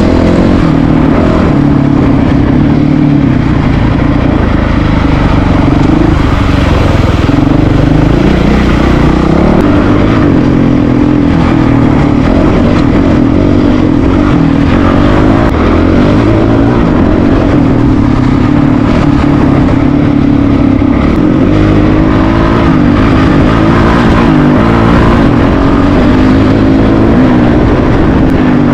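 Single-cylinder four-stroke dual-sport motorcycle running under way on a trail ride, loud and continuous, its engine pitch rising and falling as the throttle opens and closes through the gears.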